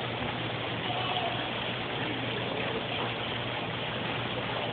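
Steady rush of water running down an artificial rock waterfall, with a low steady hum underneath.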